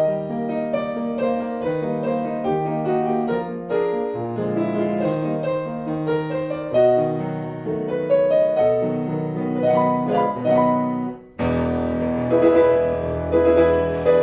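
Solo piano music playing a lively run of notes and chords. About eleven seconds in it breaks off for a moment and comes back with fuller, sustained low chords.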